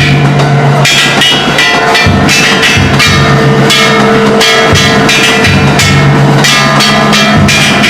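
Ishidori-bayashi festival music: a float's big taiko drum and several hand-struck bronze gongs (kane) played loudly without a pause, the gongs clanging rapidly over heavy drumbeats.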